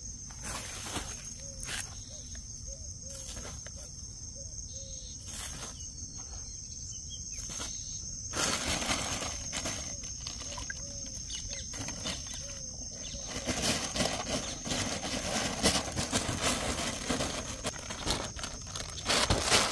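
Plastic sheet and bag crinkling and rustling as dry flour bait is scooped and mixed by hand, louder and denser in the second half. Under it runs the steady high drone of crickets.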